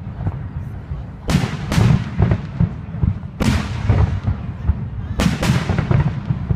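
Aerial fireworks shells bursting: five sharp bangs, two close together at about a second and a half in, one at about three and a half seconds, and two close together past five seconds, each with a trailing echo, over a steady low rumble.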